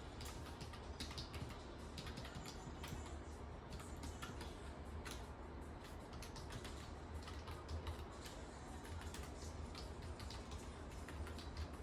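Rapid, irregular light clicks and taps, like typing, over a low steady hum.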